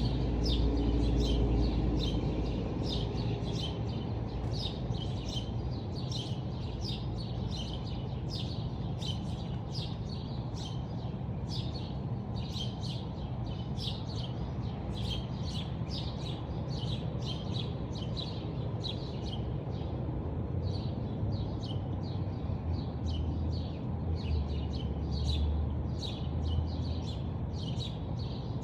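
Small songbirds chirping, short high chirps repeated two or three times a second throughout, over a steady low background rumble.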